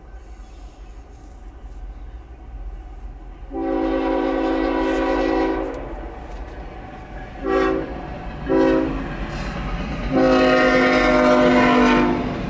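Air horn of an approaching BNSF diesel locomotive, sounding a chord of several notes in four blasts: a long one, two short ones, then another long one. This is the warning for a grade crossing. Under the horn, the rumble of the oncoming train grows louder.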